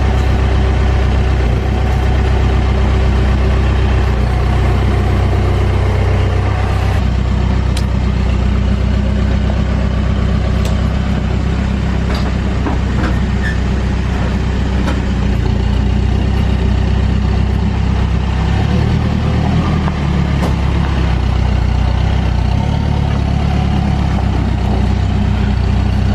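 Backhoe loader's diesel engine running steadily under work, its note changing about seven seconds in and again around twenty seconds as the load shifts.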